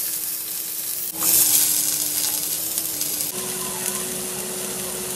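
Food sizzling as it fries in a hot pan, a dense steady hiss that gets louder about a second in. A faint tune of held notes plays underneath.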